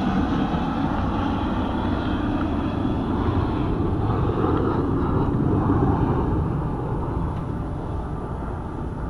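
Jet aircraft flying air show maneuvers overhead, a broad roar that slowly fades away over the last few seconds.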